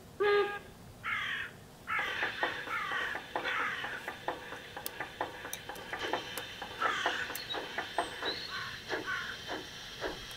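Sound module of a G-scale model of the Harz steam locomotive 99 236 chuffing with a regular beat, about two to three chuffs a second, starting about two seconds in as the train pulls away. A bird calls repeatedly over it with harsh cries.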